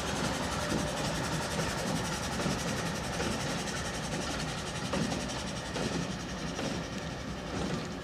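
Norfolk Southern GE Dash 9-44CW diesel-electric locomotive rolling past at close range. Its engine runs steadily under the noise of its wheels on the rails. A few faint clicks of wheels on the track come near the end.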